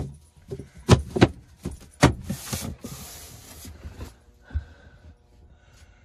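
A thin wooden shelf board knocking against the cabinet frame a few times, then scraping as it slides in to form the cabinet floor, with one last low knock as it settles.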